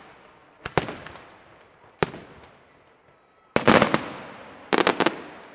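Aerial fireworks bursting. A bang comes under a second in and a single sharp bang at about two seconds. From about three and a half seconds come two rapid volleys of crackling reports, each dying away after it.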